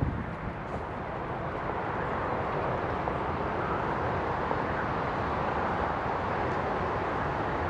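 Steady outdoor background noise, an even hiss and rumble with no distinct events, growing slightly louder about two seconds in.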